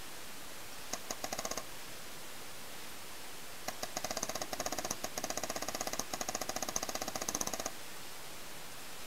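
Paintball marker firing rapid strings of shots, about a dozen a second: a short burst about a second in, then a longer burst of about four seconds.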